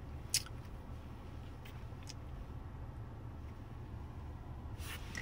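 Steady low rumble inside a car, with a sharp click about half a second in and a few fainter clicks later.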